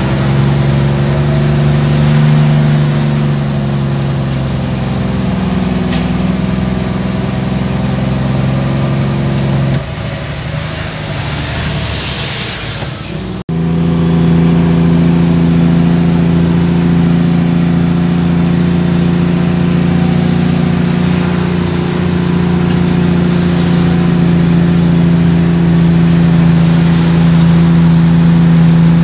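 Cummins ISX15 diesel engine of a Kenworth T800 truck carrying 34 tonnes, running steadily under load. About ten seconds in the engine note drops away and a short hiss of air follows; after a sudden break the engine runs steadily again.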